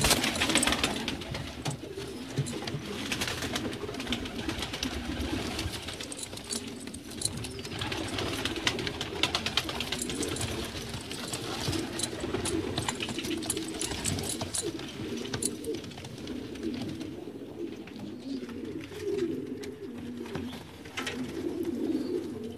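A loft full of domestic fancy pigeons cooing, many birds overlapping in a steady low murmur, with scattered light clicks.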